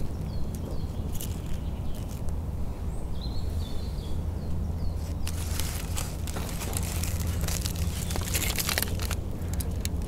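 Aluminium foil crinkling and crackling as a foil-baked fish packet is pulled open by hand, dense from about five seconds in. A few small bird chirps come in the first few seconds, over a steady low rumble.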